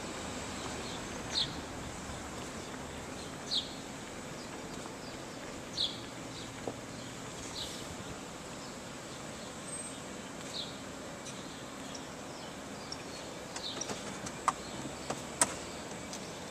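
A bird repeating a short, high call about every two seconds over a steady outdoor background hiss. A few sharp clicks and light rattles come near the end.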